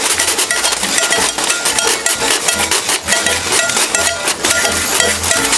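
A washboard scraped fast with a stick, its metal ribs giving a dense rattling scrape, together with a handheld cowbell struck in a quick, steady rhythm.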